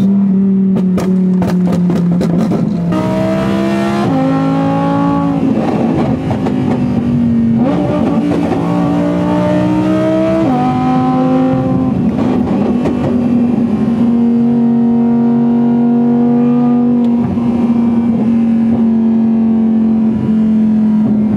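Audi R8 V10 with a new aftermarket exhaust, heard from inside the cabin: a run of sharp crackles in the first few seconds, then the revs climb twice under hard acceleration, dropping back at each gear change. After that the engine holds a steady drone at highway cruise.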